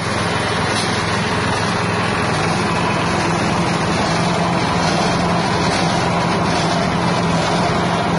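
Small 6.5 hp petrol engine running steadily at speed, driving the rotor of a spice grinding mill, a steady hum with a broad whirr over it; the mill is running empty, nothing yet being ground.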